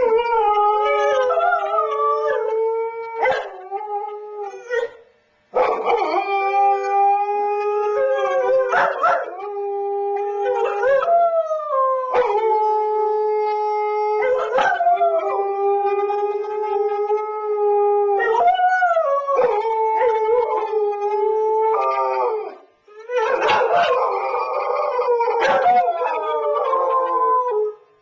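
Dogs left home alone howling: long howls, each held for several seconds at a steady pitch and dropping off at the end, with the howls overlapping more thickly near the end.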